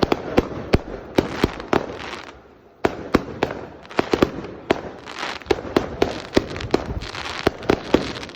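Fireworks going off in rapid, irregular bangs over a continuous crackle. There is a brief lull about two and a half seconds in, and the bangs resume with a sharp one.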